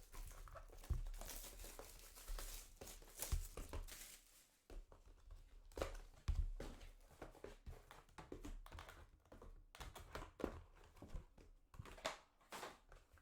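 Trading cards and their plastic packaging being handled: irregular crinkling and rustling with light taps and clicks.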